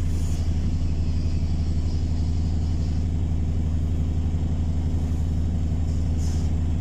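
A bus engine running steadily, heard from inside the passenger cabin as an even low drone, with brief faint hisses near the start and about six seconds in.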